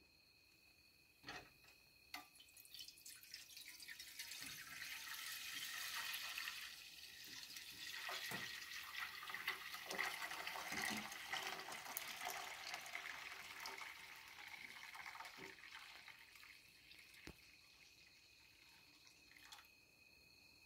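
Raw goat milk poured in a steady stream from a stainless steel milk pail into a pot, quiet at first, building a few seconds in and tapering off near the end. A few light knocks come near the start and near the end.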